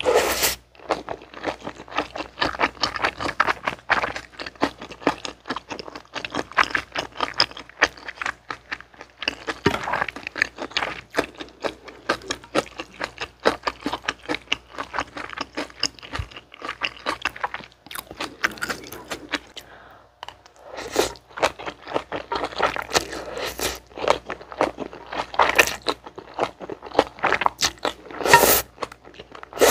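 Close-miked eating sounds: chewing and slurping chewy jjolmyeon noodles, a dense run of wet clicks and crunches, with a loud slurp near the end.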